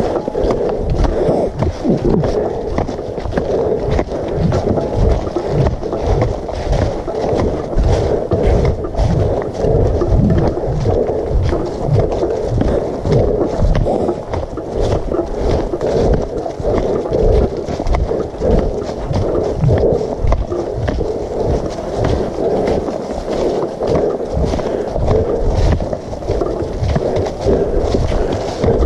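Walking footsteps shuffling through fallen leaves on a rocky trail, with a steady run of knocks and rustles as a hand-carried camera jostles at walking pace.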